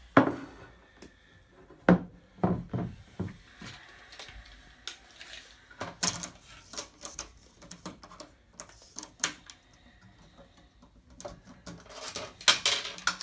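Handling knocks and clicks: an LED flood light's metal body is set down and shifted on a wooden table, and a steel tape measure is pulled out and laid across it, with a dense run of clicks near the end.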